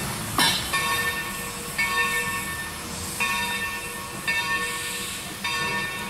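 Steam locomotive bell ringing about once a second, each stroke ringing on until the next, over the low rumble of the slowly moving train. About half a second in, a brief sharp screech slides down in pitch.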